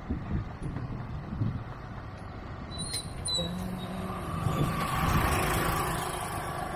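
Motor traffic on a street: a steady engine rumble. About three seconds in, a vehicle's engine hum comes in, and a hiss builds to its loudest around five seconds in, as a vehicle passes close.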